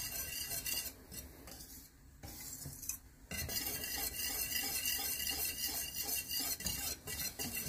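A utensil stirring a thick, wet black powder slurry of potassium nitrate, sulfur and charcoal, scraping and clicking against the cooking pot. The mixture is being stirred slowly while heated, at the stage where it starts to blob. The stirring goes quieter from about one to three seconds in, then picks up again.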